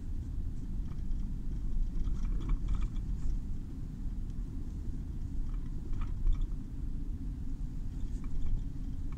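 Steady low rumble of a car's engine and tyres heard from inside the moving car's cabin, with a few faint clicks and rustles scattered through.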